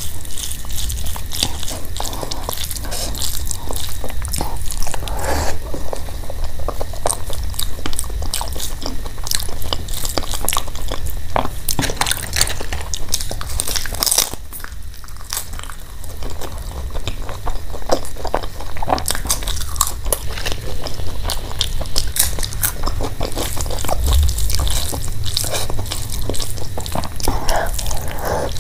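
Close-miked eating: wet smacking and chewing of hand-mixed rice with dal and mashed potato, a steady run of sharp little clicks. About halfway through comes a crisp crunching bite of papad, and there is a brief quieter pause just after it.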